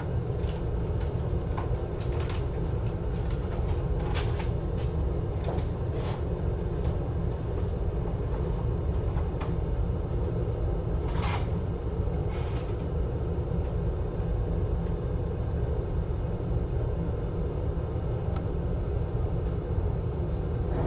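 Steady low rumble of a hot air rework station blowing during soldering of an iPad mini 2 charging flex connector, with a few faint clicks of small tools.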